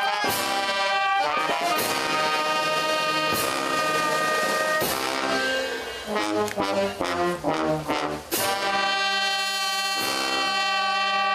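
Uniformed brass band with trumpets, sousaphone and clarinet playing long held chords. There is a run of shorter notes past the middle, then a long sustained chord near the end.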